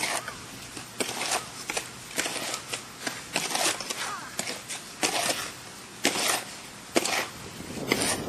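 A series of sharp knocks, roughly one a second, over a rough outdoor background.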